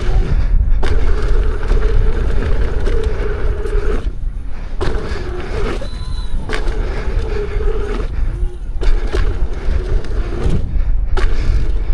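Leaperkim Lynx electric unicycle ridden fast over an off-road dirt track: tyre rumble and heavy wind buffeting on the rider's microphone, with a steady whine that drops out briefly several times.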